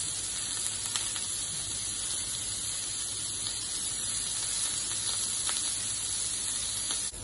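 Pieces of pre-cooked octopus sizzling steadily in hot oil in a nonstick pan as they sear to form a light crust, with a few faint taps as pieces are laid in the pan.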